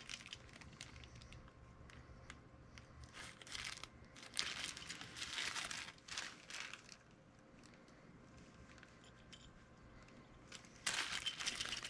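Clear plastic bag crinkling as a small die-cast toy truck is unwrapped from it. The rustles come in faint short bursts over the first seven seconds, with another burst near the end.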